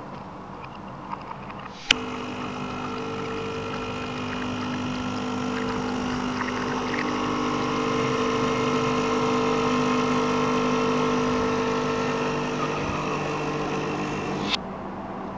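Home espresso machine's pump running with a steady hum for about twelve seconds, switching on and off abruptly with a click at each end, as coffee runs through the spout.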